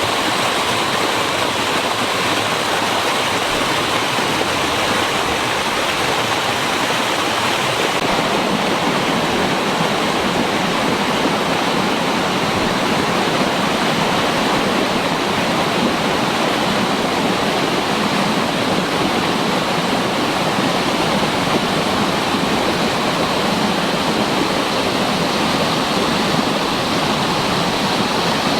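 Waterfall: a loud, steady rush of falling and splashing water that doesn't change.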